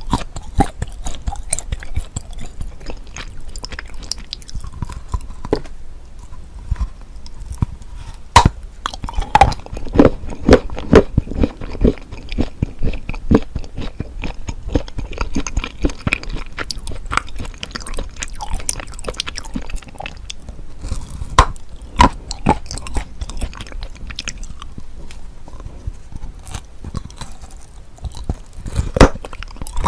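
Close-miked ASMR eating of hard chocolate: sharp snaps as pieces are bitten off, then crunching and chewing.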